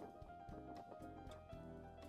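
Instrumental background music with sustained chords and a light, regular beat.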